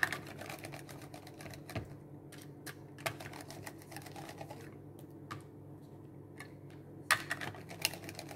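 Mushrooms being sliced on a handheld plastic mandoline slicer: irregular clicking and scraping strokes of the hand guard across the blade, with a quick cluster of louder strokes about seven seconds in. A low steady hum runs underneath.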